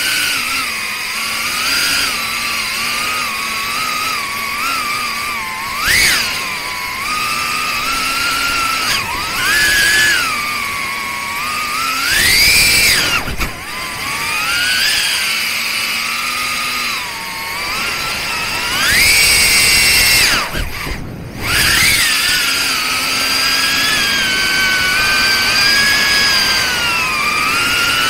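Pavo30 ducted FPV drone's four 3800 KV brushless motors and propellers whining, the pitch rising and falling with the throttle. The sharpest punch-outs come about 6, 12 and 19 seconds in, and the whine drops away briefly just after 20 seconds, a throttle cut, before picking up again.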